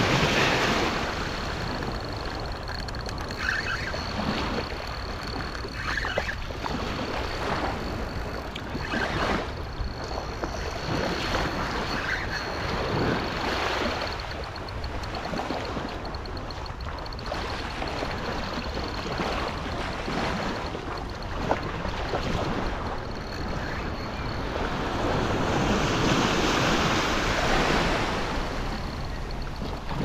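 Small ocean surf breaking and washing up the sand at the water's edge, swelling and ebbing every few seconds, loudest near the end, with a low rumble of wind on the microphone.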